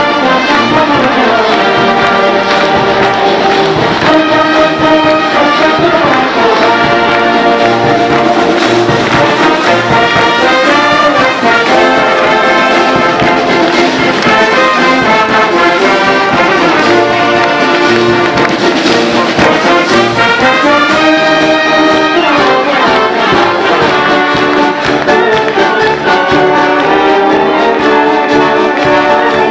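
Wind band of tubas, euphoniums, trumpets and saxophones playing a tune, loud and unbroken.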